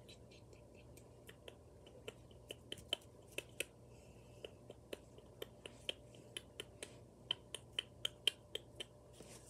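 Fingertips tapping on the phone and its camera lens: a run of quick, soft, irregular clicks, several a second, coming faster after a couple of seconds.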